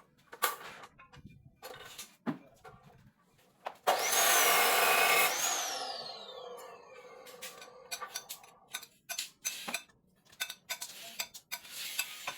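A high-speed electric motor switched on for about a second and a half, its high whine rising as it spins up, then gliding down as it coasts to a stop. Scattered knocks and clatter come before and after.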